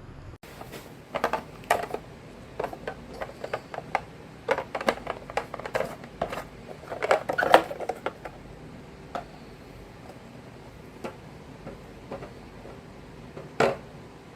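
Marbles clacking and rattling down a wooden marble run in quick, irregular clicks, thickest in the first half and sparse after, with one louder clack near the end.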